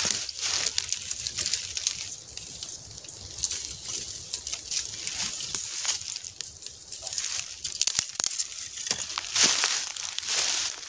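Irregular crinkly rustling that comes in short bursts with quieter gaps between them.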